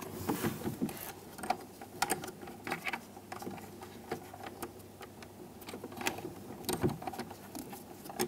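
Irregular small plastic clicks and light knocks as wiring connectors and door-panel parts are handled and pushed into place.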